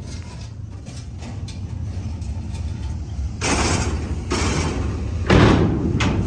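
An engine running with a steady low rumble, broken by two loud rushes of noise about three and a half and five and a half seconds in.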